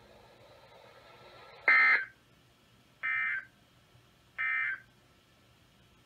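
Three short bursts of EAS SAME data tones from a NOAA Weather Radio receiver, about a second apart, the first one loudest: the end-of-message signal that closes the broadcast flood warning. A faint radio hiss runs between the bursts.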